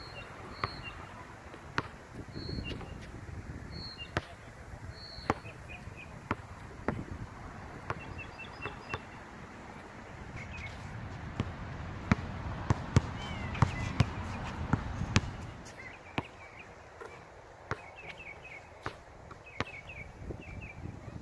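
Basketball dribbled on an outdoor hard court: sharp bounces about once a second, quickening into a fast run of bounces a little past the middle. Birds chirp throughout, and wind rumbles on the microphone at times.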